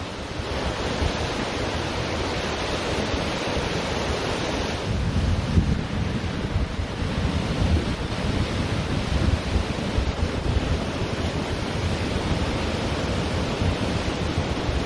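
Ocean surf washing onto a beach, with wind buffeting the microphone in low gusts.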